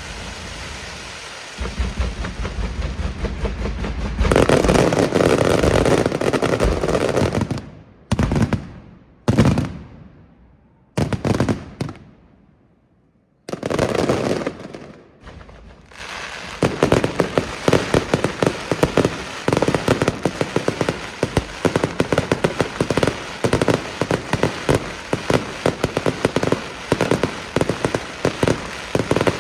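Fireworks display. A dense loud rumble of explosions comes first, then a few separate heavy bangs, each with a ringing tail and short gaps between them. From about halfway on comes a rapid, continuous crackle of sharp bangs, several a second.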